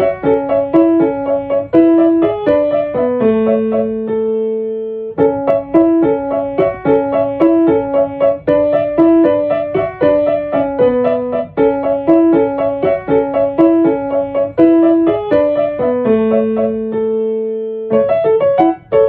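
Background piano music: a light melody in a repeating phrase, pausing on a held note twice.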